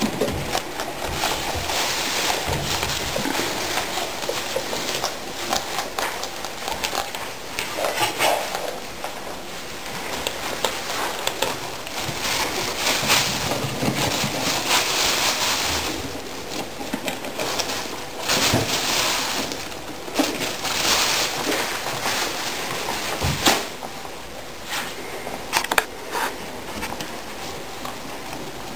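Guinea pig rustling through wood-shaving bedding and leafy greens: irregular rustling and crackling with scattered sharp clicks.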